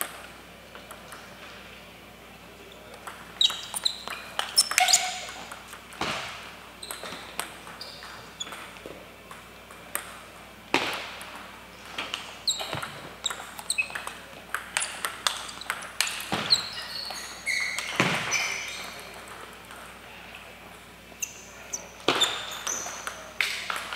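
Table tennis ball clicking sharply off paddles and the table in quick runs of hits during rallies, with short pauses between points. The hits ring slightly in a large hall.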